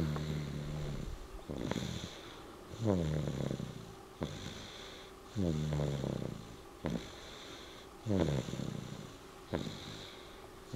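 A sleeping child snoring in a steady rhythm: four snores, each falling in pitch, come about every two and a half to three seconds, with a short breathy puff between each.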